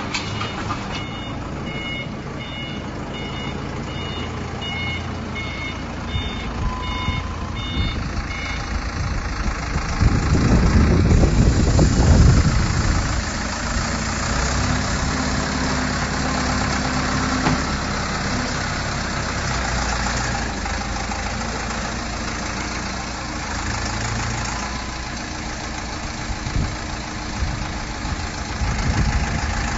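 Forklift engine running as it moves a heavy load. A repeating electronic beep alarm sounds for roughly the first eight seconds, and the engine revs up loudest between about ten and twelve seconds in.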